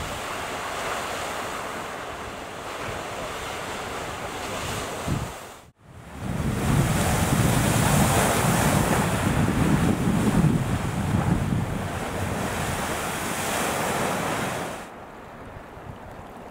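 Geyser erupting: a steady rushing hiss of water and steam, mixed with wind on the microphone. It breaks off for an instant about six seconds in and comes back louder, then drops away sharply about fifteen seconds in.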